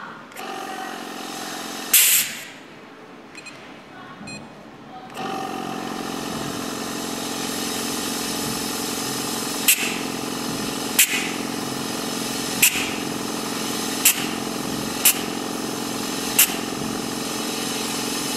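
Micro-particle high-pressure essence injection machine at work: a brief sharp hiss about two seconds in, then from about five seconds a steady motor hum. Short sharp spurts come from the high-pressure head about every second and a half in the second half.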